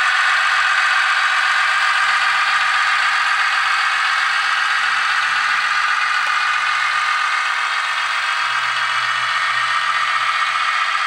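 Digital sound decoder of a Mehano BB 61000 model diesel locomotive playing its diesel engine sound at steady running revs through the model's small onboard speaker as it runs along the track. The sound is thin and tinny, with little bass.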